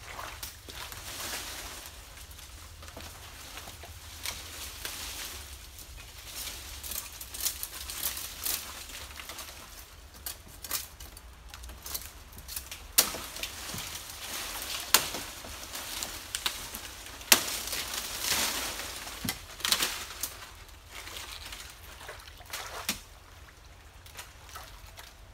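Dry nipa palm fronds and leaf litter rustling and crackling as they are handled and walked through, with several sharp cracks along the way.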